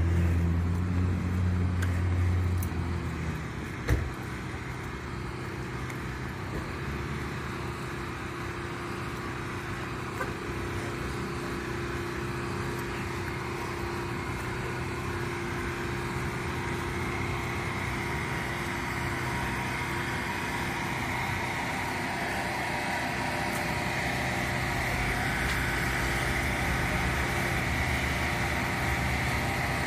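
Steady road-traffic noise with engines running, one vehicle loud and close in the first few seconds. A single sharp knock sounds about four seconds in.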